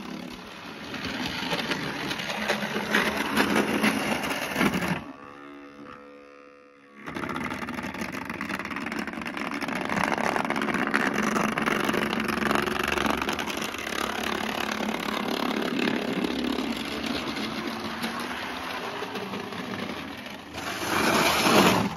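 Model diesel train running round the layout: the locomotive's electric motor whirring and its wheels rattling along the rails. The sound drops away for about two seconds a quarter of the way in, then carries on steadily and swells just before it cuts off.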